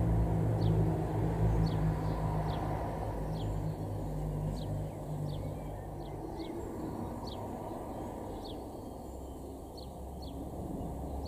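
Tit nestlings at a nest box giving thin, high begging chirps, each a short downward note, about one a second. A steady low rumble runs underneath, heavier in the first few seconds.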